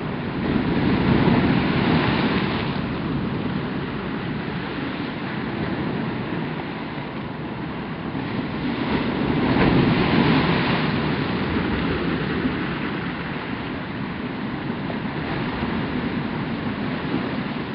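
Ocean surf breaking and washing through coquina rock ledges: a steady rushing that swells louder twice, about a second in and again around ten seconds in, as waves come in.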